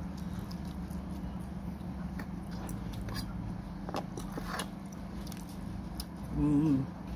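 A person chewing a mouthful of soft puto (steamed rice cake) with grated coconut, with faint mouth clicks, over a steady low hum. A short vocal sound comes near the end.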